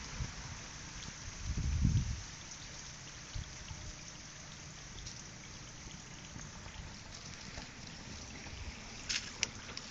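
Steady outdoor hiss with wind gusts buffeting the microphone, strongest about two seconds in, and a few sharp clicks near the end.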